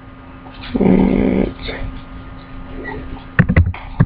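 A low, rough, drawn-out vocal sound lasting under a second, about a second in, then a few sharp clicks near the end as keyboard keys are typed.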